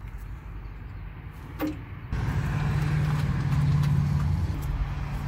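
A motor vehicle's engine running, coming in suddenly about two seconds in as a steady low hum.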